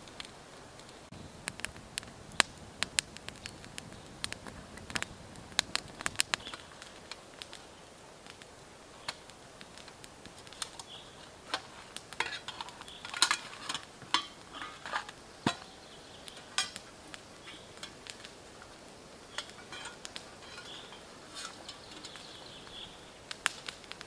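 Small twig fire crackling with sharp pops for the first several seconds, then metal camp cookware clinking and rattling about halfway through as a pot is taken out of a backpack.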